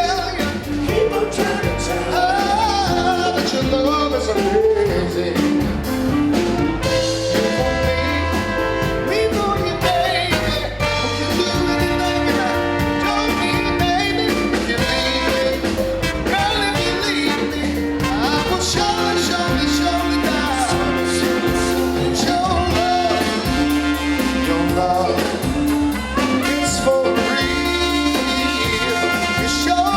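Band music with a steady beat, bass and long held melody notes, in the style of jazz or blues.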